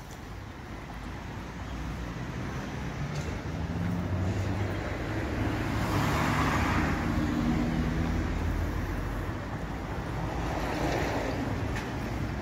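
City street traffic: cars driving past with a low engine hum, the loudest pass swelling about halfway through and a smaller one near the end.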